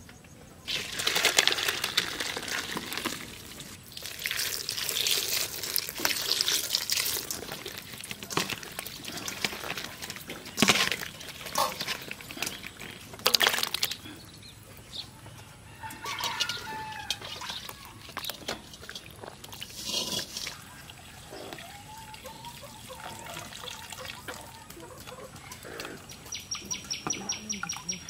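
Water poured from a steel vessel into a steel bowl and sloshed around as chunks of goat offal are washed by hand, with a couple of sharp knocks of the metal vessels partway through.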